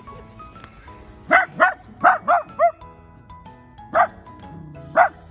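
A young dachshund barking sharply and high-pitched: a quick run of five barks, then two more spaced about a second apart. This is the frantic, reactive barking (gyan-boe) of a dog not yet trained out of it.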